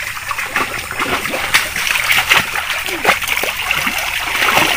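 Shallow muddy water splashing and sloshing, irregularly and many times over, as several people wade through it and scoop with baskets and basins.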